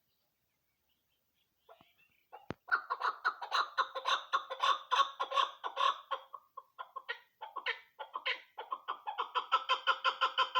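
Chukar partridge calling. After a quiet start and a single click, a fast run of repeated clucking notes begins about two and a half seconds in, breaks into scattered notes around the middle, then speeds up into a fast run again near the end.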